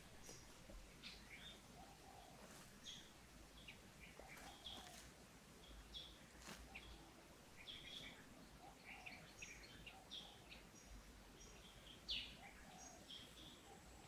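Faint birds chirping: many short, high calls scattered throughout, one a little louder about twelve seconds in.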